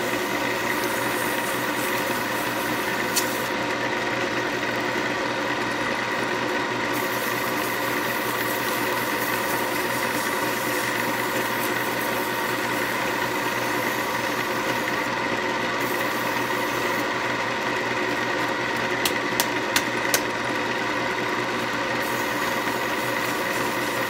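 Wood lathe motor running steadily with an even multi-tone hum as a snakewood pen barrel spins on its mandrel under hand sanding. A few light clicks come about 19 seconds in.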